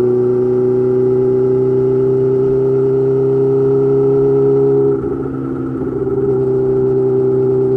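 Yamaha YZF-R6's inline-four running through an M4 GP slip-on exhaust under way, a steady pitch creeping slightly upward. About five seconds in, the sound briefly drops and wavers, then settles back to a steady pitch.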